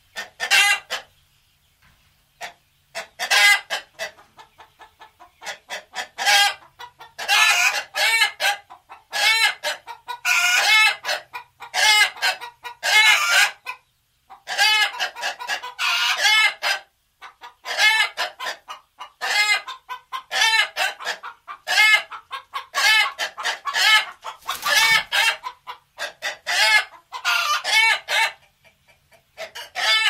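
Chickens clucking, with a rooster crowing, in a steady run of calls broken by short gaps.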